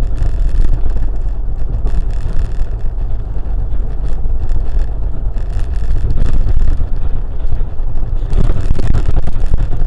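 Steady low rumble of road and engine noise from a vehicle driving at speed, with wind buffeting the microphone, heavier near the end.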